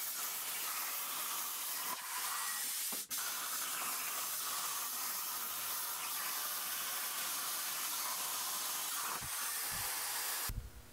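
Plasma torch on a Torchmate CNC plasma table cutting steel plate: a steady hiss of the arc and its air stream. It drops out for a moment about three seconds in and stops shortly before the end.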